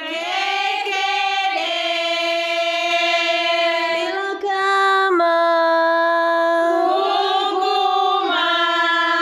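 Young women singing together, holding long steady notes with brief breaks between phrases.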